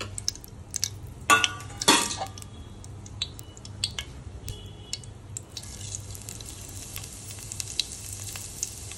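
Cumin seeds frying in hot oil in a pan: scattered sharp crackles and pops over a sizzle that grows louder about halfway through. Two louder metal clanks, a steel ladle against the pan, come about one and a half and two seconds in.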